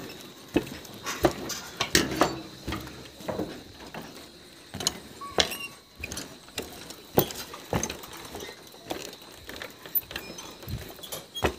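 Footsteps knocking on the wooden planks of a suspension footbridge, at an uneven pace of about one or two a second.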